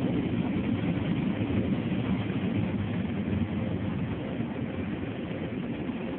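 Car wash dryer blowers giving a steady rush of air noise, heard from inside the car. It slowly fades as the car pulls away from them.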